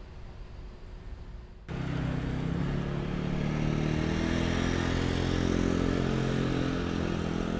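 Low street rumble, then about two seconds in a sudden jump to a louder, steady motor vehicle engine hum with traffic noise.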